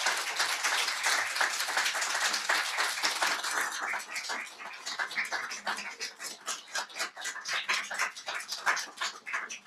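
Audience applauding: dense clapping at first that gradually thins out into scattered single claps and dies away near the end.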